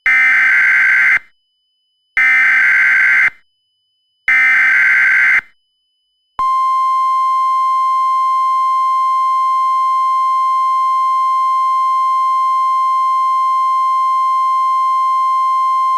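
Emergency Alert System SAME header: three identical screechy bursts of digital data, each about a second long, followed a second later by the NOAA Weather Radio 1050 Hz alert tone, one loud steady tone held for about ten seconds that stops abruptly. Together they announce that an emergency alert message follows.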